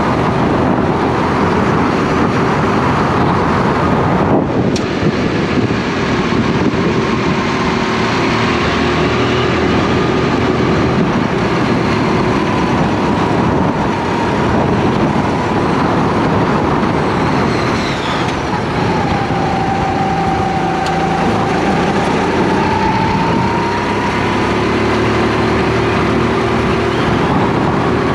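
Racing kart's engine running at speed on a lap, heard from on board over a steady noisy rush. Its pitch rises and falls through the corners, dropping sharply about four seconds in as the throttle is lifted and dipping again past the middle before climbing back.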